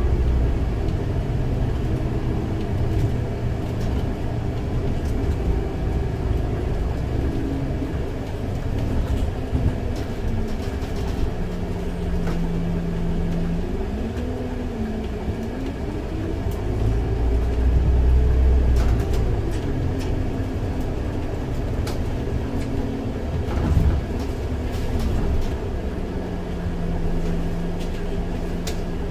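Scania OmniLink three-axle bus's diesel engine running under a low rumble. Its pitch rises and falls several times as the bus speeds up and slows down, and holds steady for a few seconds in the middle and again near the end. There are a few brief knocks and rattles.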